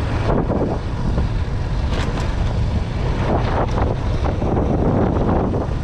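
Motorcycle riding along a road: a steady low rumble of engine and road noise, with wind buffeting the microphone.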